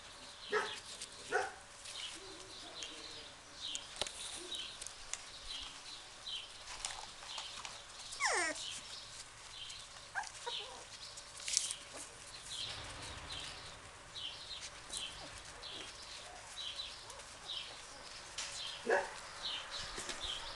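Animal calls: a few short pitched calls near the start and one near the end, and one long call falling in pitch about eight seconds in, over a steady run of short high chirps.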